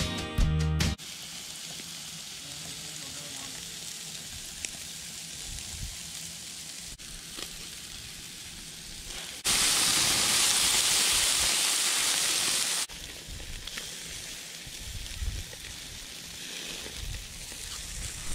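Ribs sizzling on a charcoal grill: a steady hiss, which grows much louder for about three seconds near the middle while smoke rises off the hot coals.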